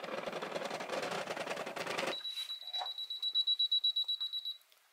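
Brother XR3340 computerized sewing machine running with a fast mechanical clatter for about two seconds, then stopping abruptly. A high, rapid beeping alarm follows for about two and a half seconds. The beeping is the machine's E6 error, meaning the motor is jammed, here by a seized bushing on the bobbin driveshaft.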